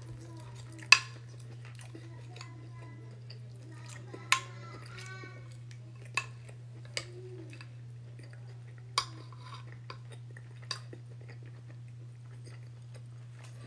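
Metal spoon clinking and scraping against a glass baking dish, about six sharp clinks with the loudest about a second in, and quiet chewing in between. A steady low hum runs underneath.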